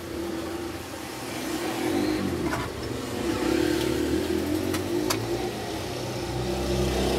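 A motor vehicle's engine running and revving, with a few light clicks in between.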